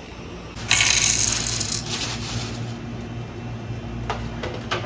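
A loud metallic clatter and jingle about a second in that rings out over a couple of seconds, then a few sharp clicks near the end: metal baking trays being handled on a stainless steel counter.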